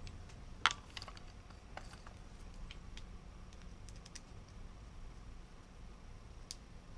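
Scattered light clicks and taps of a carbon-fibre frame plate and a hex screwdriver being handled, the sharpest about half a second in, over a faint low steady hum.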